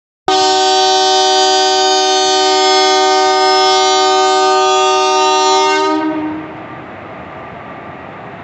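Indian Railways locomotive horn on the Deccan Queen giving one long, loud departure blast, a steady chord of several notes lasting about six seconds. It stops just after six seconds, leaving a steady, quieter background hum.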